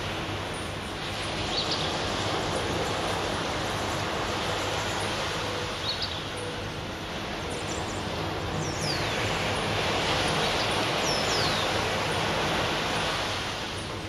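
Surf washing onto a sandy beach in a steady rush that swells and eases, growing louder in the second half, with a few short high falling chirps over it.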